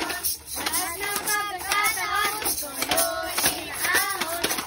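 A group of children singing a Christmas carol together, with a steady beat of clicks about twice a second from shaken or struck plastic bottles.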